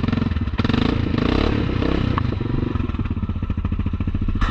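Yamaha Kodiak 700 ATV's single-cylinder engine running steadily at idle, with clattering and knocks on top about a second in.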